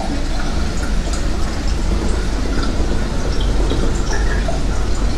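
Moving escalator running with a steady low rumble, with small scattered clicks and pings over it.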